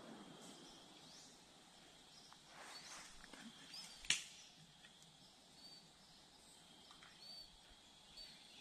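Quiet woods at dusk with a few faint, short, high bird calls and one sharp crack about four seconds in.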